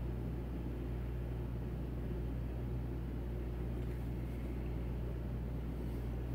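Steady low mechanical hum with a faint even hiss: room background noise, unchanging throughout.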